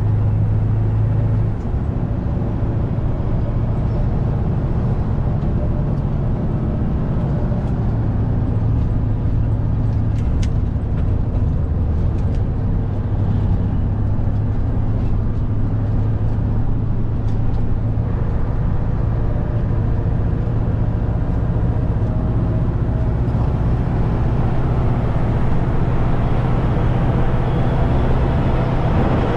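Scania 144's V8 diesel engine running steadily under way, heard from inside the truck's cab with road noise, a brief dip in level about a second and a half in.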